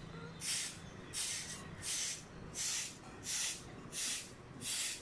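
A short hand broom sweeping a paved street in quick, even strokes: seven swishes, about three every two seconds.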